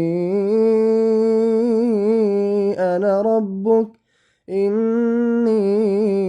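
A male reciter chants the Quran melodically with tajwid, unaccompanied, drawing out long ornamented notes. The voice breaks off for a breath about four seconds in, then resumes on a long held note.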